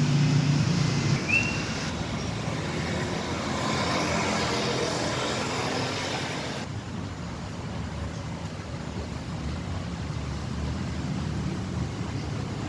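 Yamaha MT-09 motorcycle's inline three-cylinder engine running, loudest in the first second, with a short high chirp just after. About two-thirds of the way through the sound turns suddenly duller and steadier.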